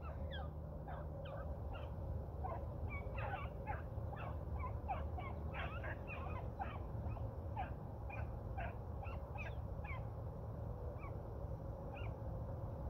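A pack of beagles baying faintly at a distance while running a rabbit on scent: many short, overlapping yelps and bays, several a second, over a steady low rumble.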